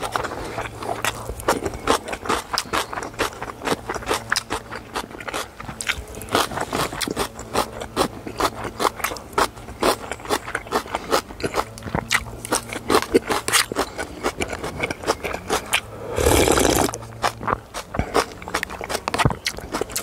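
A person eating close to the microphone with chopsticks from a cup: a steady run of chewing and small clicks and scrapes, with one longer, louder noisy sound about sixteen seconds in.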